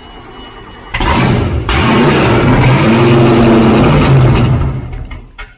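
A powerboat's inboard engine fires up about a second in and runs loud, revving up briefly, then dies away near the end.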